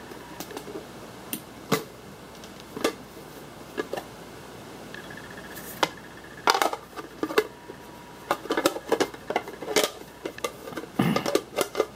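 A bamboo bento box being handled, its lid taken off and fitted back on, giving scattered clicks and knocks of lid against box. They come singly at first and get busier in the second half.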